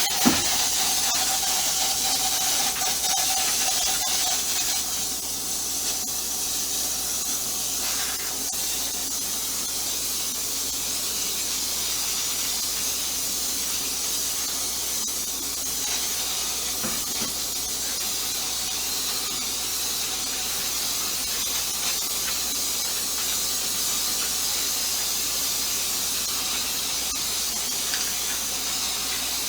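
Aerosol can of Kilz Upshot ceiling primer spraying with a steady hiss, held without a break, with a faint squealing tone over the first few seconds.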